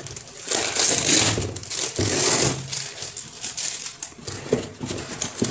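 Cardboard fan box being handled and opened, with scraping and rustling of cardboard and plastic wrapping in several uneven bursts.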